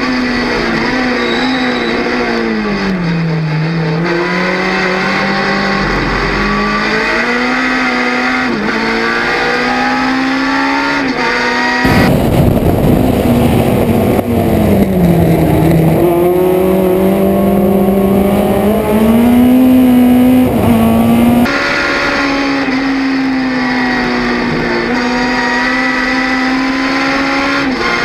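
Race car engine heard from inside its stripped, roll-caged cabin, running hard at high revs; about three seconds in the revs fall away for a corner and then climb back. Partway through, a stretch from an outside camera is louder with heavy wind rush over the engine, and the same fall and climb in revs repeats before the cabin sound returns.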